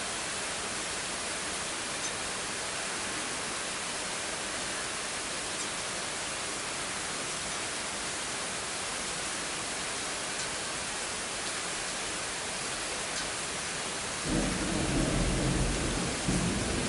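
Steady rain hiss. About three-quarters of the way through, a louder low rumble joins it.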